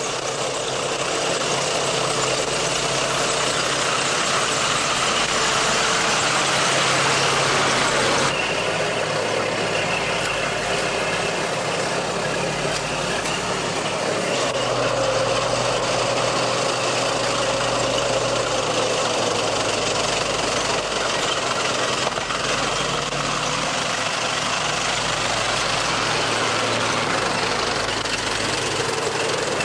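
Heavy vehicle engine running with a steady low drone under a dense, noisy rattle; the sound changes abruptly about eight seconds in and again around fourteen seconds in.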